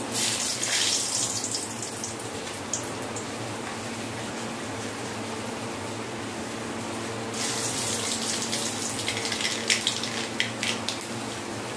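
Hot oil sizzling in a metal wok as whole spices are dropped in, with sharp crackling spits. The sizzle flares right at the start, settles to a softer hiss, then flares again with crackles from about seven seconds in.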